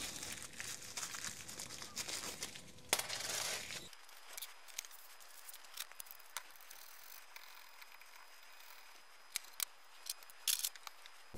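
A plastic parts bag crinkling as it is handled, with one sharp louder crackle near the middle. From about four seconds in, only scattered small sharp metal clicks and taps as a two-jaw bearing puller is fitted onto an electric saw's armature to draw off its rear bearing, with a few quick clicks near the end.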